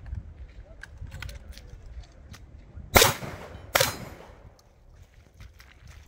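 Two shotgun shots about three quarters of a second apart, each a sharp blast with a short ringing decay, about three seconds in. Lighter clicks and handling noise come before them.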